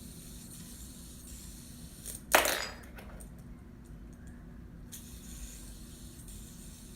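Fidget spinner spinning fast with a faint steady whir, broken by one sharp clatter a little over two seconds in and a small click near the five-second mark.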